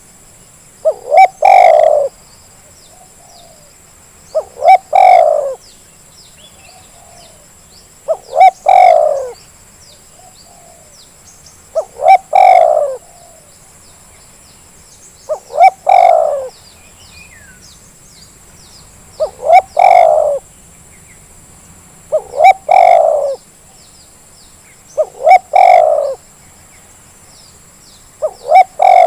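Spotted dove (terkukur) cooing over and over, about every three and a half seconds. Each call is two short notes and then a longer falling coo. This is a lure call meant to set lazy caged doves calling. Small birds chirp faintly behind it.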